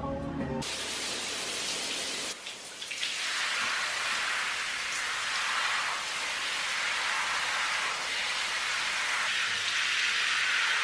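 Shower running, water spraying steadily onto tiles and a person, with a brief dip a couple of seconds in.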